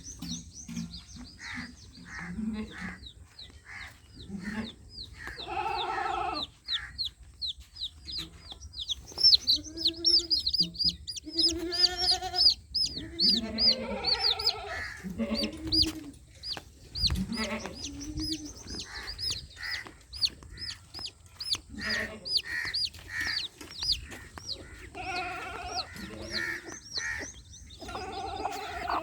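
Baby chicks peeping: many short, high, falling peeps in quick succession, thickest from about a third of the way in. Lower clucking calls, typical of a mother hen, sound among them.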